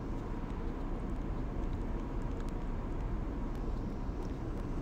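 Steady low background rumble with a faint hum, even in level throughout.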